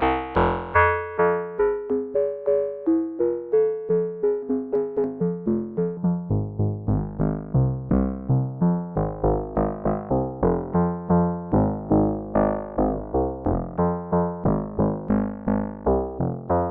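K-ACCUMULATOR synthesizer oscillator module in its FBPM2 feedback phase-modulation mode, playing a fast sequence of short, decaying pitched notes, about three a second. The notes are rich in overtones and shift in pitch from note to note.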